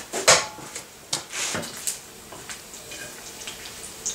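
Bacon frying in a pan being tended with a utensil: a few sharp knocks and short bursts of sizzling in the first two seconds, then quieter.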